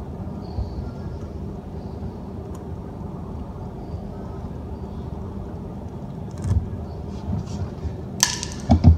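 Steady low background rumble, with a knock partway through and, near the end, a short sharp scrape followed by a few dull thumps, as hands work at a punctured motorcycle tyre during a plug repair.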